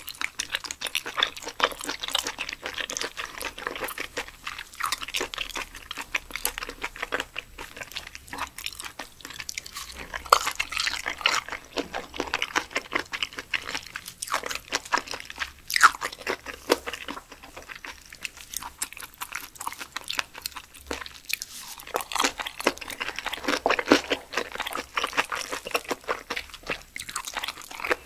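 Close-miked chewing of blanched Pacific spiny lumpsucker, a chewy, gelatinous food: a continuous run of quick wet mouth clicks and bites.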